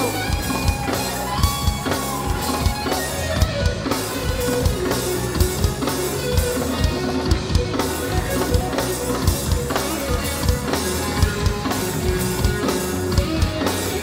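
Live rock band playing an instrumental passage: electric guitar and bass guitar over a steady drum-kit beat.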